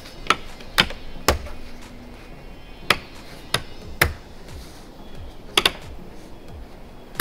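Plastic retaining clips snapping loose one after another as a thin aluminium roof channel guard is pried up out of its channel: about eight sharp snaps at uneven gaps.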